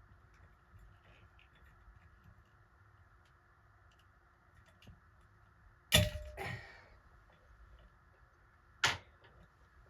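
A sharp clack about six seconds in, followed at once by a shorter rattling knock, then a single sharp click about three seconds later: hand tools or small parts being handled during the fan switch repair.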